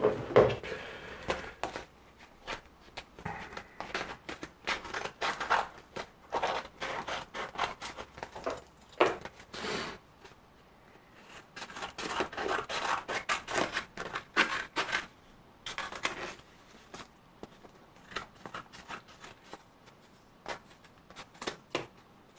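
Small scissors snipping through a thick paper pattern covered in masking tape, in runs of short quick cuts, with the paper rustling as it is turned in the hands. There is a brief pause about ten seconds in.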